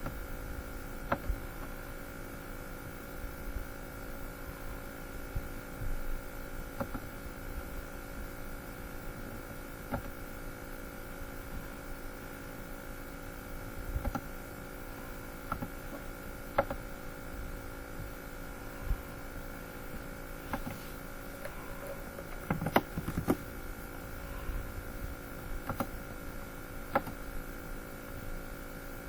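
Steady electrical hum with several fixed tones, with scattered sharp clicks throughout and a brief cluster of them a little past the middle.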